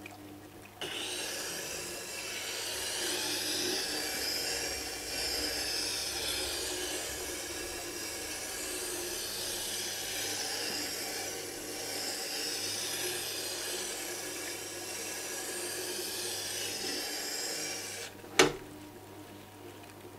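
Steel turning gouge in a sharpening jig grinding against the slowly turning extra-fine diamond wheel of a Tormek T-8: a steady scraping rasp that swells and eases as the bevel is worked across the wheel. One sharp knock comes near the end, after the grinding stops.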